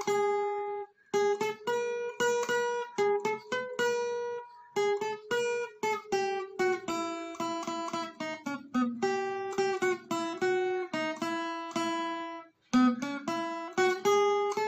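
Background music: a plucked acoustic guitar playing a quick melody of short notes, with two brief pauses.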